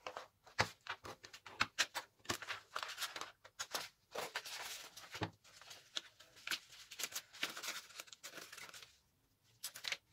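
Scissors snipping through a sheet of A4 paper, with the paper rustling as it is turned and handled; the cutting stops about nine seconds in.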